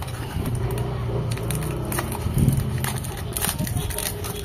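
Small blade slitting the packing tape on a small cardboard box, with scratchy scraping and a scatter of cardboard clicks and crackles.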